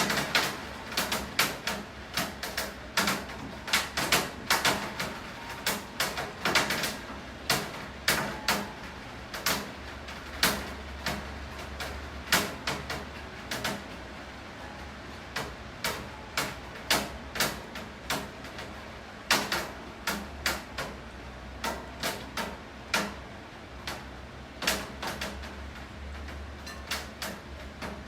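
Raindrops and drips striking a hard surface: irregular sharp taps, several a second and uneven in loudness, over a steady hiss of rain.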